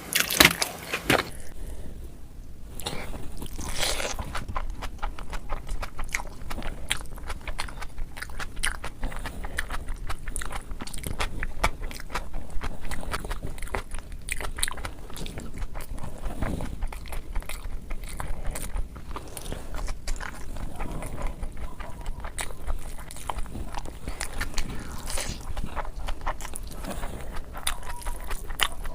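Close-miked chewing and crunching of crisp food: a dense, continuous run of sharp crunches, with a few louder bites near the start and about four seconds in.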